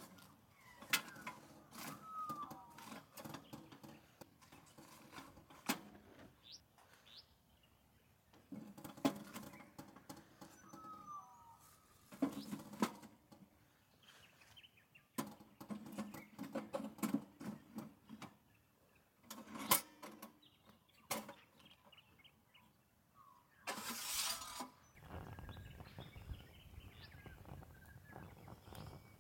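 Irregular knocks, clicks and rustling of camp gear being handled, with a few short bird chirps. About 24 seconds in comes a short burst of hiss, followed by a low rumble.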